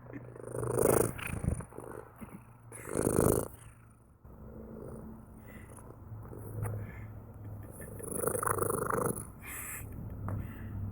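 Domestic cat purring: a steady low rumble with three louder, breathy swells.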